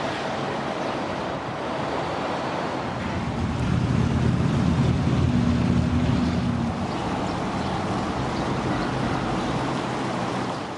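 City traffic noise with a motor vehicle's engine humming close by, swelling to its loudest around the middle.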